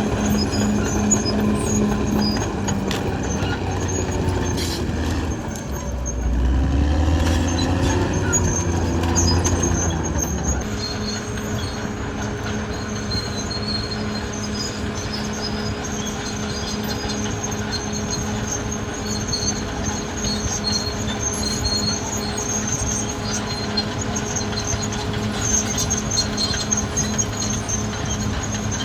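Caterpillar D6R XL crawler bulldozer's diesel engine running, with a pulsing hum. About six seconds in the engine gets louder and its pitch rises and falls for a few seconds as it works under load, then it settles back to a steady run.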